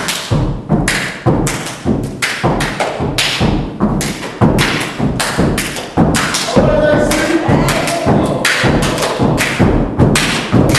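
Step team stepping: a fast, even run of loud stomps and hand claps, about two or three hits a second. A voice calls out briefly about two-thirds of the way through.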